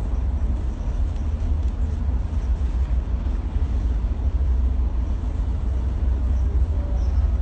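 Steady, deep rumble of a vehicle under way, heavy in the lowest tones, with an even hiss over it.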